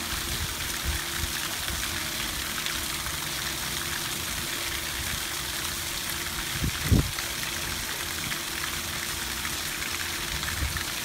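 Water from a stone fountain's spouts pouring and splashing into its pool, a steady rush, with a brief low thump about seven seconds in.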